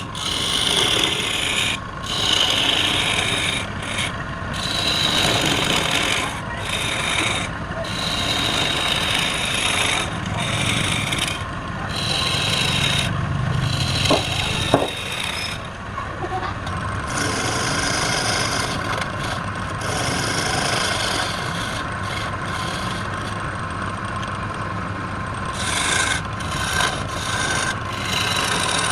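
Wood lathe spinning a workpiece while a tool rubs and scrapes against the turning wood, with the contact breaking off briefly many times.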